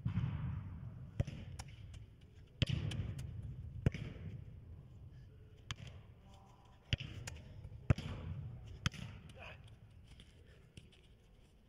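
A football being struck and controlled: a run of about nine sharp thuds spaced irregularly a second or so apart. Several are followed by a low booming echo from the indoor hall.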